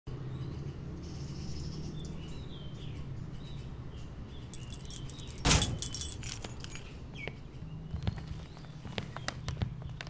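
A potted plant knocked over by a dog crashes onto a wooden floor about halfway through: a short loud crash with high clatter. Scattered light clicks and taps follow over a low steady hum.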